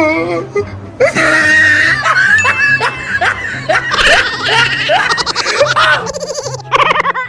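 A person laughing hard in a long run of short, repeated 'ha' sounds over background music with a steady bass beat.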